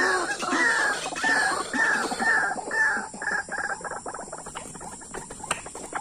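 White-breasted waterhen (ruak-ruak) calling: a string of repeated arched notes that speed up and fade after about three seconds, followed by a fast, faint rattle of ticks.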